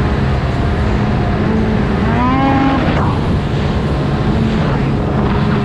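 Two-stroke 600cc race snowmobile engine running at speed, heard from on the sled. About two seconds in its pitch rises briefly and falls back.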